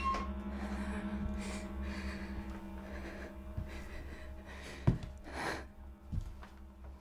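A woman breathing in several uneven, sharp gasps over a low steady hum, with a single sharp click about five seconds in.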